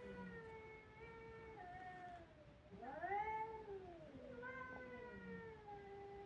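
Two cats caterwauling at each other in a face-off: long, drawn-out yowls that waver and slide up and down in pitch. One call dies away near the middle, and a new rising yowl starts at once and carries on to the end.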